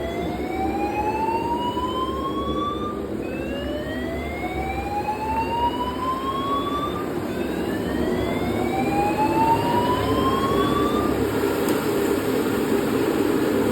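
Building fire alarm sounding a slow rising whoop tone: three sweeps, each climbing in pitch over about three seconds and then cutting off, over a steady rushing noise.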